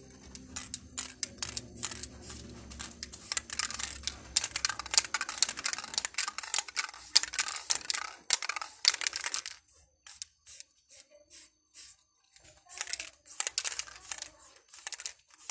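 Aerosol spray paint can sprayed in many quick, short bursts of hiss, pausing for a couple of seconds about ten seconds in before the bursts resume.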